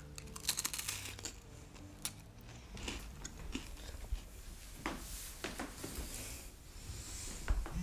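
A cookie being bitten and chewed: quiet, scattered crisp crunches every second or so.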